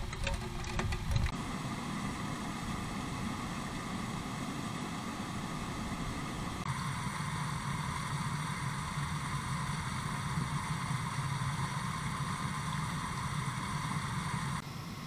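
Rain falling on a beaver pond, with a few sharp drop clicks in the first second and then a steady hiss. About six and a half seconds in, it changes to water spilling over a beaver dam in a steady rush.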